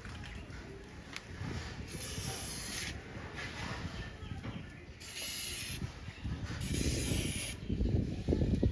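Aerosol can spraying onto a motorcycle drive chain in three short hissing bursts of about a second each, a dried-out chain being soaked with spray cleaner. Low rumbling near the end.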